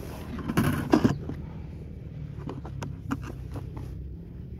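Close handling noises: a rustling scrape about half a second in, then a few light clicks and taps.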